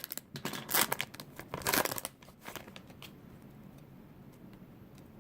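A shiny foil baseball card pack wrapper being torn open and crinkled, with loud rips about one and two seconds in. After about three seconds it settles to a few faint ticks.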